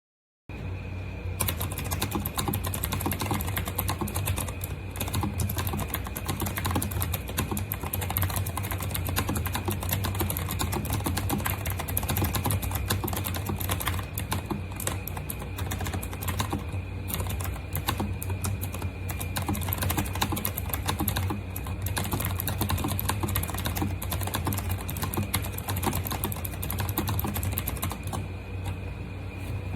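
Continuous fast typing on an RK Royal Kludge S108 mechanical keyboard with clicky blue switches and round typewriter-style keycaps: a dense stream of key clicks over a steady low hum.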